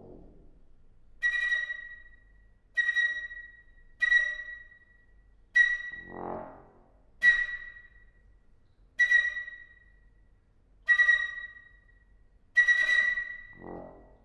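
Flute and trombone duo in a contemporary piece: the flute plays eight short, accented, breathy high notes on the same pitch, spaced about one and a half to two seconds apart, each dying away quickly. A short low trombone note answers twice, about six seconds in and near the end.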